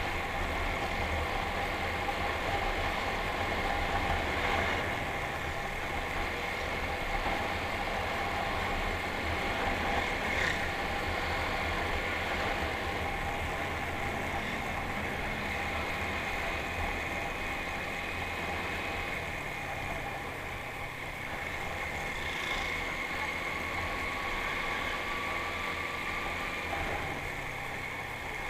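Motorcycle engine running steadily while riding along a road, with road noise and traffic around.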